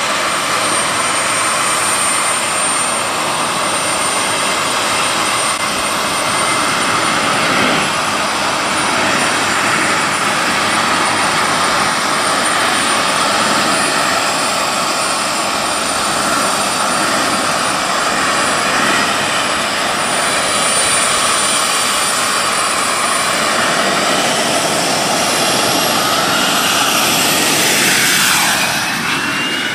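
Homebuilt gas turbine engine of a landspeed motorcycle running with a steady high whine. Over the last few seconds the whine rises in pitch as the bike pulls away and passes close by.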